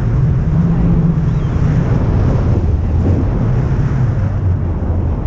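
Wind buffeting a pole-mounted camera's microphone as a tandem paraglider flies: a steady, loud, low rumble of rushing air.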